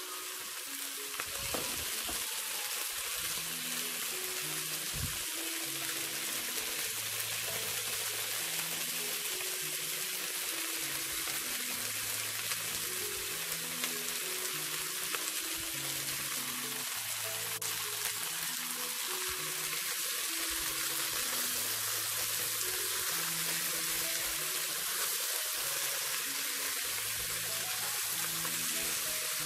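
Chicken wings with ginger, garlic and spring onion whites sizzling steadily in hot oil in a pan, over soft background music.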